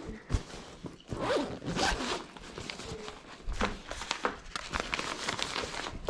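Backpack zipper pulled in several short runs, with the bag's fabric rustling and a single knock just after the start.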